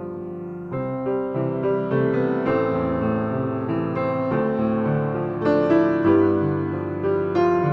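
Instrumental piano music playing a melody over chords, growing louder about a second in.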